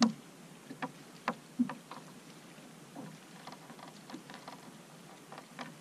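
A landed bass being unhooked by hand on a boat deck: a few sharp taps and knocks in the first two seconds, then fainter ticks, over a steady low background hiss.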